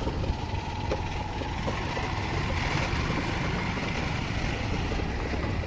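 An engine running steadily with a low rumble and a faint whine, heard while travelling.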